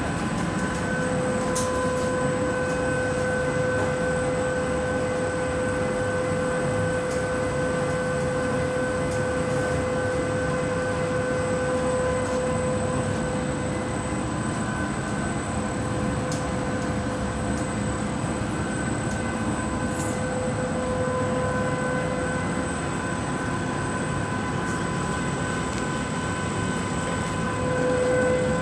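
Industrial washing machine running steadily: an even mechanical rumble with a steady motor whine at one pitch, and a few faint clicks.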